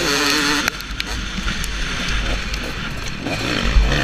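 Single-cylinder two-stroke engine of a KTM 250SX motocross bike, heard from a helmet camera: it is on the throttle at first, then shuts off under a second in. For the rest it coasts with a low wind rumble and knocks from the track, and one hard low thump near the end.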